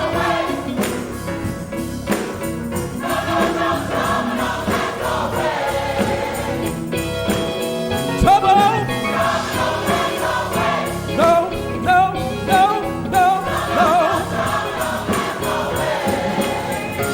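Gospel choir singing with live instrumental accompaniment and a steady beat.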